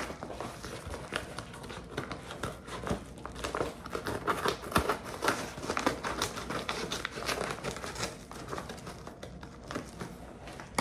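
Packaging crinkling and rustling as it is handled, with dense, irregular crackles throughout.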